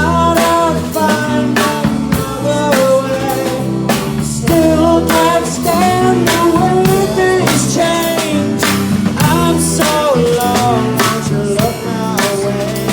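A rock band playing a song: a drum kit keeps a steady beat under guitar, with a bending lead melody line over it and no clear sung words.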